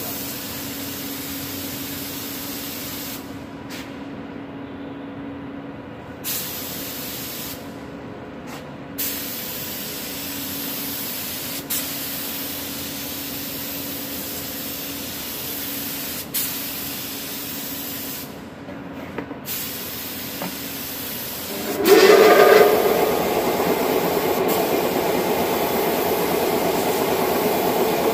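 HVLP spray gun hissing steadily as compressed air atomises paint, cutting out briefly a few times as the trigger is released. About 22 seconds in, the 0.5 HP air compressor cuts in with a sudden loud start, then runs with a steady hum under the hiss.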